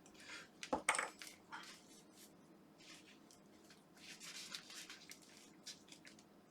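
Clicks and scraping of a Philips Sonicare electric toothbrush's plastic handle being gripped and pulled at to work it open. The sharpest clicks come about a second in, then a scratchy rubbing, then a few light clicks near the end.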